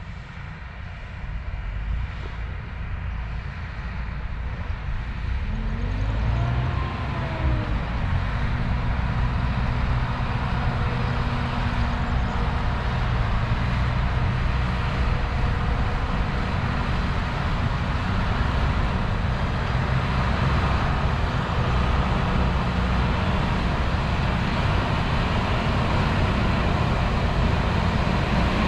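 Fendt 718 Vario tractor engine running. It grows louder over the first several seconds as it comes closer, with a faint whine that rises and falls about six seconds in, then carries on at a steady level.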